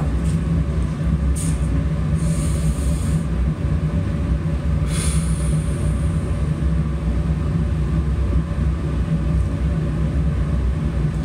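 A steady low rumble, with two short hisses about two and five seconds in.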